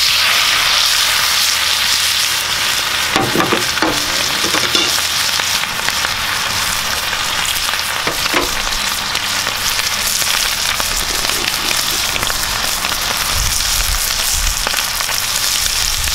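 A thick steak sizzling hard in hot butter in a cast iron pan as it is laid in for the final sear of a reverse sear, with a few sharp pops of spattering fat.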